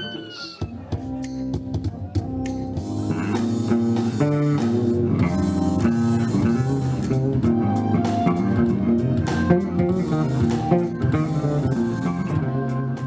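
Electric bass guitar playing a run of distinct plucked notes, with sharp percussive hits behind it. A violin's held note slides down and fades out in the first half-second.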